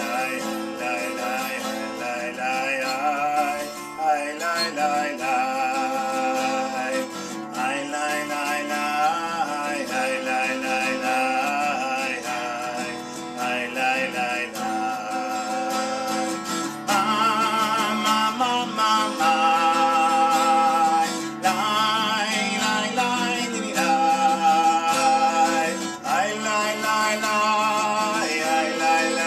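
A man singing a melody while playing an acoustic guitar, the singing growing louder about halfway through.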